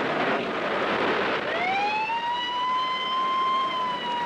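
A rushing noise, then about a second and a half in an outdoor warning siren winds up into a steady wail that begins to sink slowly near the end. It is the siren sounding a tornado warning.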